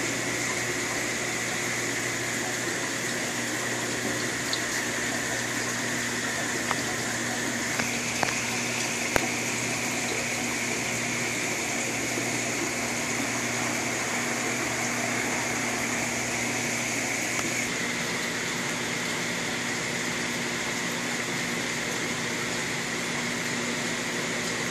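Steady running of aquarium pumps and water in a room of goldfish tanks: a constant low hum under a hiss of moving, bubbling water, with a few faint clicks.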